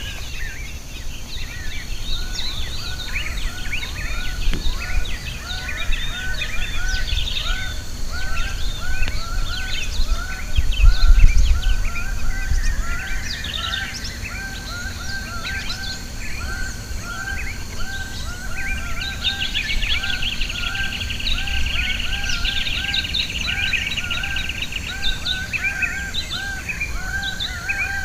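A chorus of wild birds singing and calling over one another, with a short arched note repeated about twice a second and a fast trill partway through. There is a brief low rumble about eleven seconds in.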